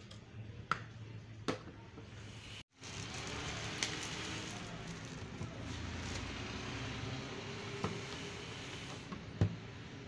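Hard plastic spray-gun parts clicking and knocking as they are handled, then, after a short break, plastic packaging crinkling and rustling continuously, with a few sharper clicks.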